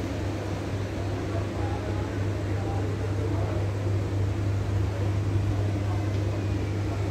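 Exhibition hall background: a steady low hum with faint, indistinct chatter of people nearby.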